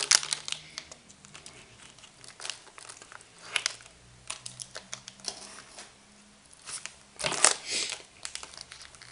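Plastic packets of drone speed controllers crinkling and rustling as they are handled and set down, in short scattered crackles, loudest about seven seconds in.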